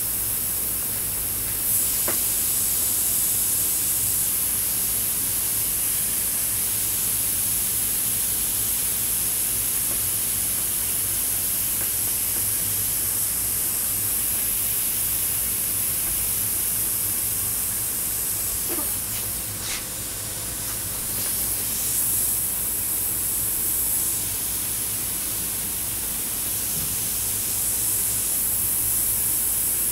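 Steady hiss of air and paint spraying from a double-action, suction-feed airbrush. It dips briefly about two-thirds of the way through.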